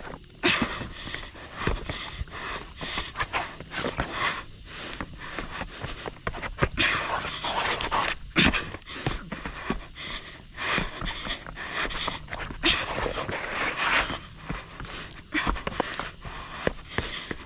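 Heavy panting of a runner descending steep rock at speed, breaths coming every second or so, mixed with short scuffs and knocks of shoes and hands on the rock.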